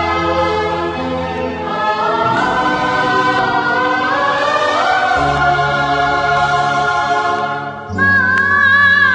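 Music with voices singing long held notes over steady bass notes, the chords shifting slowly. Near the end it dips briefly and comes back louder on a new chord.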